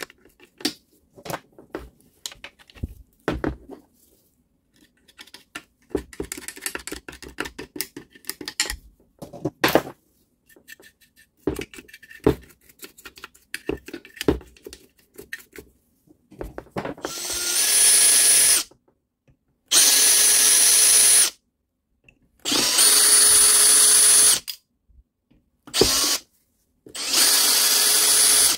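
A small brush scrubbing and scratching over the saw's metal guard and gear housing, with scattered clicks and taps. Then a cordless drill runs in five short bursts of one to two seconds, the first speeding up, its chuck held to the circular saw's arbor; these runs are the loudest thing.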